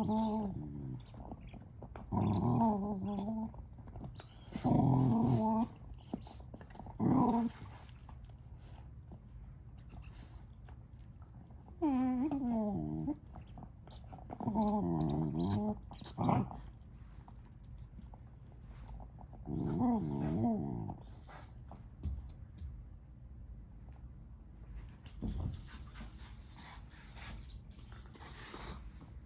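A dog making growly, warbling 'Chewbacca' noises in a series of short bursts while playing with a squeaky ice-cream-cone toy. The toy's squeaker gives short high squeaks throughout, and a quick run of them near the end.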